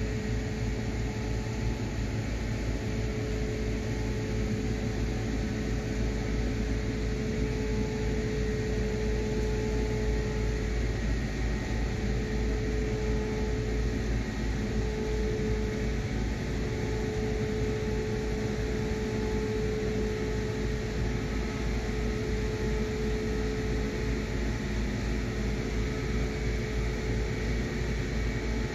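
A steady mechanical hum: a constant drone over a low rumble that does not change.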